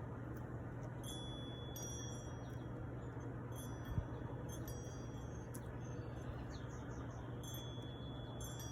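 Metal wind chimes tinkling now and then, short clusters of high ringing notes over a steady low hum and hiss. A single dull thump about four seconds in.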